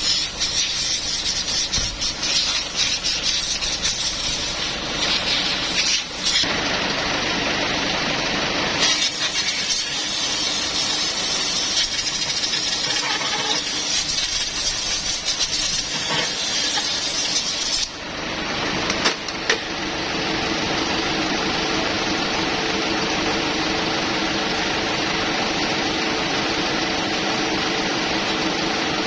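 Loud hissing spray with some rattle, breaking off briefly twice, then from about twenty seconds in a steady machine hum.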